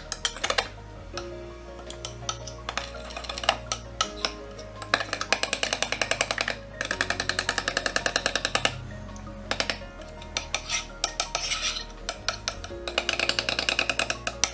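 A metal spoon clinking fast against a glass bowl as yogurt cream is beaten, in runs of quick ticks that start and stop, over background music.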